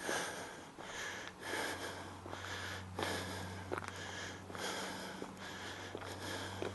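Footsteps of a person walking on a garden path at a steady pace, a bit more than one step a second, over a steady low hum.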